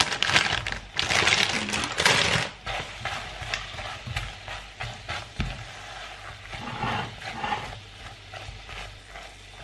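Marshmallows tipped from a crinkling plastic bag into a stainless steel pot of melted margarine, loudest for the first two and a half seconds. Then a silicone spatula stirring them while the hot fat sizzles quietly.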